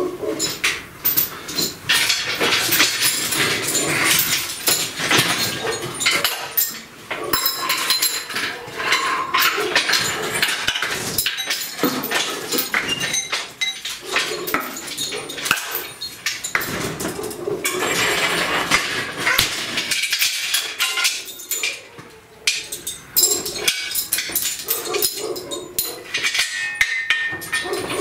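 Steel parts of a shop engine hoist clanking and clinking as it is set up: the boom moved and pinned and the lifting chain rattling, in a dense run of knocks and clinks.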